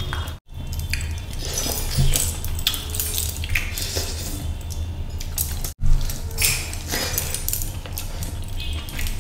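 Close-up eating sounds: wet chewing and lip smacking, and fingers squishing rice and fish curry on a plate, as irregular small clicks over a steady low hum. The sound drops out for an instant twice.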